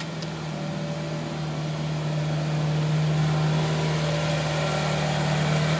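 Neuson mini excavator's diesel engine running with a steady hum, growing a little louder over the first few seconds and then holding.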